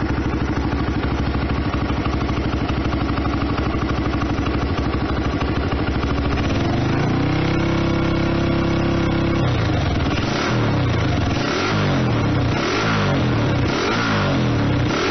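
Honda NSF100's single-cylinder four-stroke engine running through an aftermarket D5C slip-on silencer. It idles steadily, is then revved up and held at high revs for about three seconds, drops back, and is given a series of short throttle blips about once a second.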